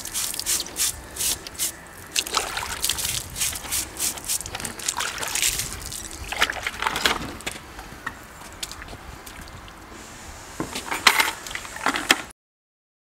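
Water splashing and dripping in short, irregular bursts as a wet sponge from a bucket is worked over an African elephant's trunk tip to clean off paint. The sound cuts off suddenly near the end.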